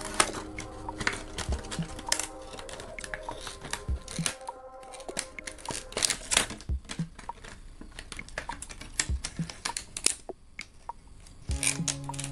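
Scissors snipping through a thin sheet of PET soda-bottle plastic: many quick, sharp snips, with the plastic crinkling as it is turned in the hand. Soft background music plays underneath.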